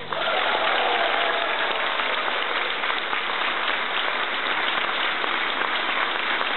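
Concert audience applauding: dense, steady clapping that breaks out all at once as a song ends.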